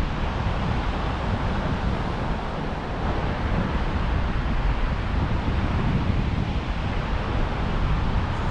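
Wind buffeting the microphone in a steady, heavy rumble over the continuous rush of surf.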